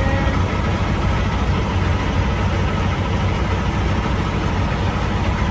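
Semi truck's diesel engine idling steadily, a low even hum with no change in pace.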